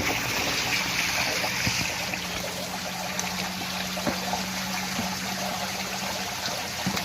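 Water running and trickling in a storm drain: a steady rushing hiss, with a low steady hum underneath that stops near the end and a few small knocks.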